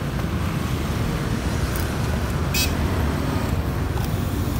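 Steady low rumble of road traffic and running vehicle engines, with a short high-pitched squeak about two and a half seconds in.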